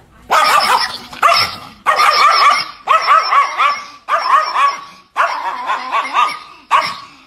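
Chihuahua barking in rapid strings of high-pitched yaps, about seven volleys of roughly a second each with short breaks between them.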